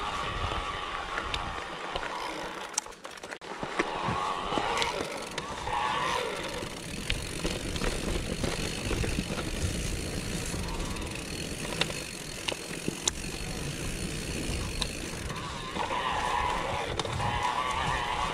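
Mountain bike riding over dirt and gravel: continuous tyre and rolling noise, with scattered sharp clicks and knocks from the bike over bumps.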